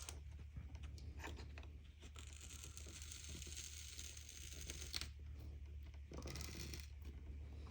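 Razor blade scraping crystallized adhesive residue off the glass of an LCD panel: a run of short scraping strokes, then one longer even stroke that ends in a sharp click, then more short strokes. The residue is probably acetic acid crystals from the film's breakdown. A steady low hum runs underneath.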